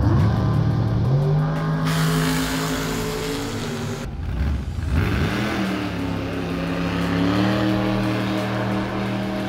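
Drag-race car engines running: one revs up and holds a steady note, then breaks off about four seconds in. Another revs up a second later and holds a steady note to the end.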